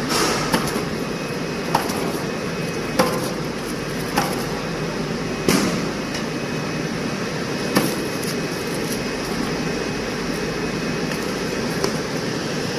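Automatic heat-shrink tunnel running: a steady rushing noise from its hot-air blower and conveyor, with about six sharp knocks as stacks of books are set down and carried through on the conveyor.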